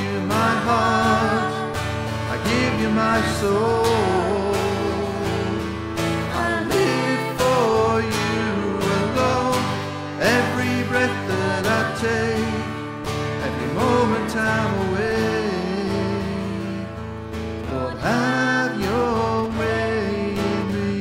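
A woman singing a slow worship song, her melody gliding over strummed acoustic guitar.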